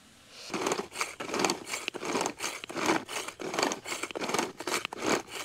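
Sweetcorn kernels being crushed in a small hand-twisted plastic grinder with a three-bladed cutter: a quick run of crunching, scraping strokes, about three a second, as the lid is twisted back and forth, starting about half a second in.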